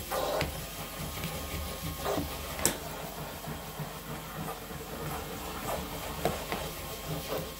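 Vacmaster 2.5-gallon shop vac running, a steady hiss of rushing air, with a few sharp clicks and knocks. The loudest knock comes a little under three seconds in.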